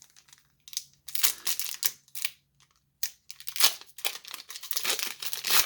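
Foil Pokémon booster-pack wrapper crinkling and tearing as it is opened, in short rustling bursts with pauses between them, more continuous near the end.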